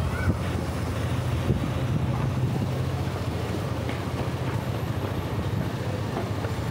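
Steady low rumble of street traffic and engines, with faint scattered clicks and knocks over it.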